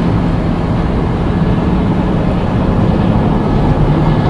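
Steady in-cab road noise of a 2019 Chevrolet Silverado LTZ pickup cruising at highway speed: tyre and wind noise with a steady low hum.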